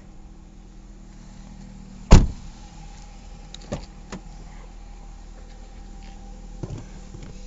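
A car door on a Nissan Rogue SUV is shut with a single loud thump about two seconds in. A few lighter clicks and knocks follow over a steady low hum.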